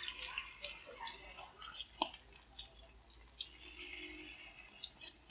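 Vegetable-batter patties frying in hot oil in a pan, a steady sizzle and crackle as spoonfuls of batter go into the oil. A single sharp click about two seconds in.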